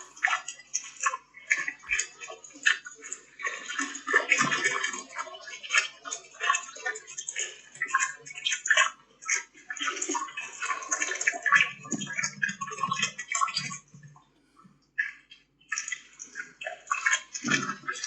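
Harsh, crackling hiss in the audio recorded by a Tapo C545D security camera, coming in ragged irregular flurries that sound like rushing water. This is the camera's audio fault. The noise drops out for a moment about fourteen seconds in.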